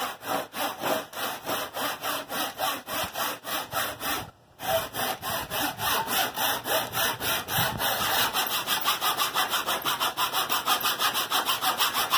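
Handsaw cutting through a wooden kayak stringer to trim it to length, with a steady rhythm of about three strokes a second. The sawing breaks off briefly a little over four seconds in, then resumes and quickens toward the end.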